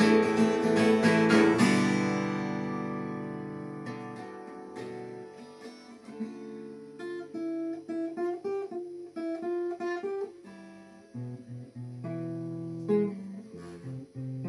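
Acoustic guitar: fast strummed chords for the first two seconds or so, then the last chord left to ring and fade, followed by single picked melody notes.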